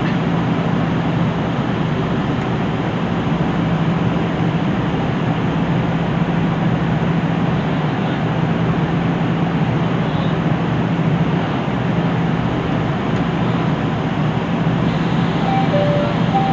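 KiHa 75 diesel railcar's engine idling steadily while the train stands at a platform, a constant low hum. A short two-note tone sounds near the end.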